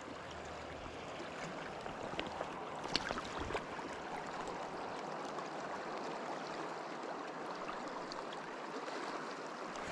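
River current flowing steadily: an even rush of moving water, with a few faint clicks about three seconds in.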